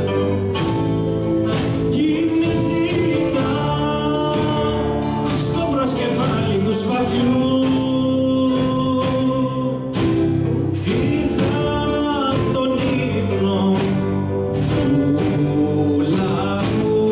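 Live band playing a song with singing, acoustic guitar, plucked lutes, keyboard and a drum kit keeping a steady beat.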